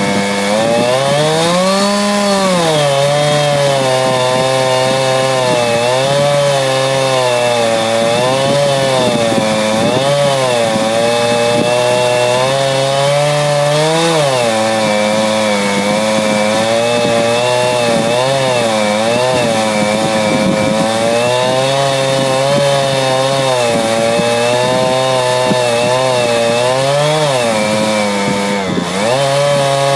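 Two-stroke chainsaw running under load as it rips lengthwise through a log to mill a board. The engine pitch wavers up and down as the cut loads and eases, with a few larger swings.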